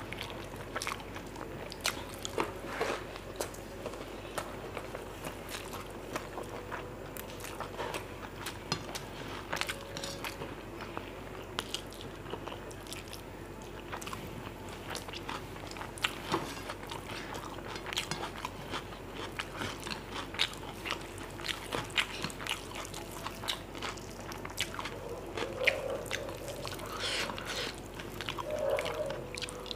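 Two people eating mutton biryani by hand close to the microphone: chewing, lip smacks and many small sharp clicks and light crunches all through.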